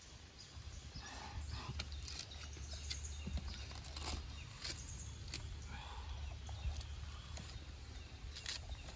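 A small wood cooking fire being tended: scattered sharp clicks and knocks of sticks being handled and fed in, over a low rumble.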